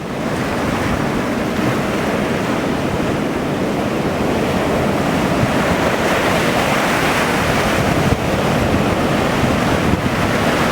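Ocean surf breaking and washing ashore, mixed with wind buffeting the microphone.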